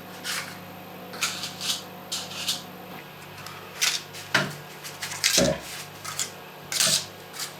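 Paper cupcake cases being put one by one into a baking tray: a string of short light taps and paper rustles, with a duller knock a little past halfway.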